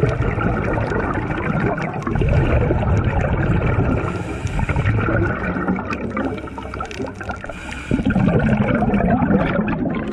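Scuba diver's exhaled air bubbling out of the regulator underwater, close to the microphone, in two long bubbling stretches; the louder one comes near the end as the bubbles wash over the camera.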